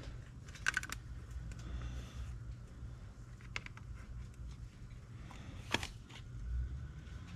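A few light clicks and taps of small plastic parts being handled while the display screen is refitted, over a low steady hum.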